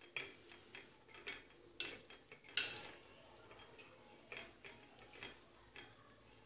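A spoon stirring cooked chickpeas in a bowl, clinking against the bowl: scattered light clicks, with two sharper knocks about two and two and a half seconds in.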